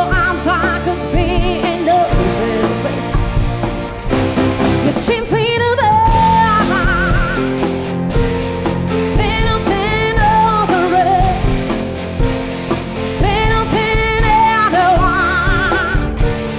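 A live rock band playing: a woman sings phrases with wavering held notes over electric guitars, keyboard and drums.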